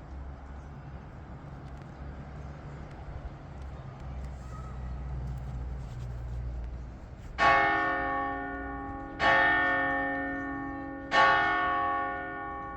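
A large church bell struck three times, about two seconds apart, each stroke ringing out and slowly fading. Before the strokes, a low rumble runs for the first half.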